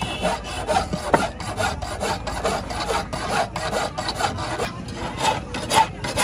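Hand file scraping back and forth across the metal collar of a multi-pronged fishing spear (koch), in quick even strokes about two to three a second.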